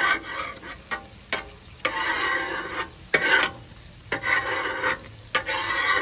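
Metal spatula or scraper scraping across a flat-iron griddle in repeated strokes, about one a second, cleaning the cooking surface, with burgers sizzling on the griddle.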